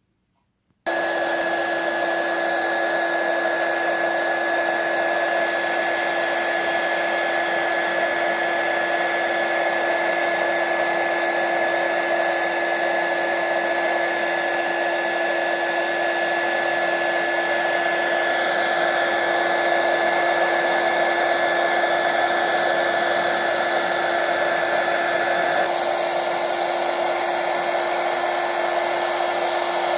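Electric hot-air blower switched on about a second in and running steadily, a constant rushing of air with a steady whine. It is blowing onto the black plastic handle of a violet ray device to warm it and free the Tesla coil stuck inside.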